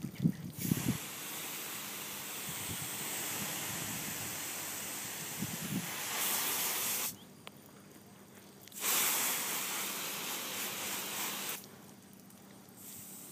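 Water spraying from a hose onto a horse being bathed: a steady hiss that cuts off about seven seconds in, comes back about two seconds later and stops again near the end. A few low bumps come near the start.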